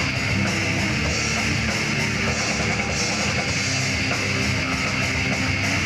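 Rock band playing live, electric guitars over a drum kit, at a steady loud level.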